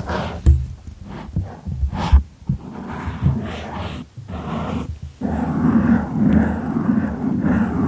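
Close-miked objects being handled and tapped: irregular soft knocks with scratchy rubbing between them.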